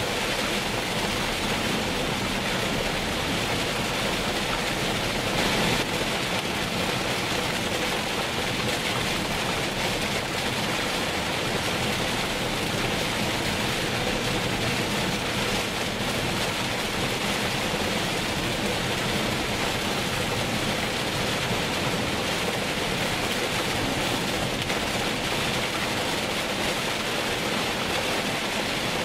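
Heavy rain falling steadily on a moving car, heard from inside the cabin as an even rushing hiss, with a brief swell about five seconds in.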